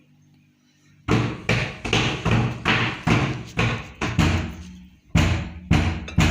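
Heavy, evenly paced thuds from kitchen work, about two or three a second, starting about a second in.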